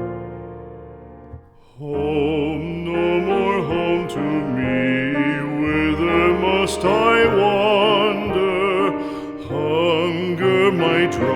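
Background music: a piano chord dies away, and about two seconds in a singer with a wide vibrato starts a slow ballad over piano accompaniment.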